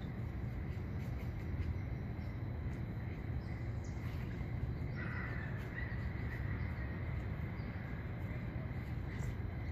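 Steady low outdoor rumble with no speech, and a bird calling about five seconds in.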